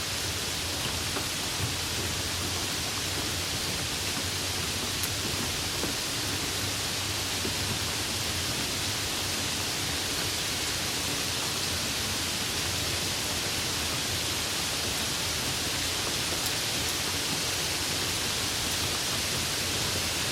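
Light rain falling steadily: an even hiss with a few faint ticks of single drops.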